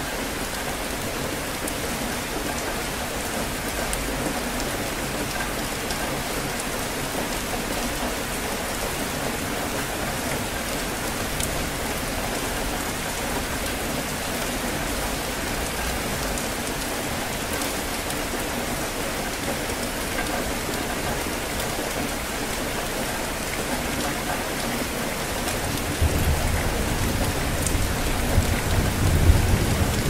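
Steady rain falling in a rainstorm, an even hiss of drops on hard surfaces. About four seconds before the end a low rumble of thunder comes in and grows louder.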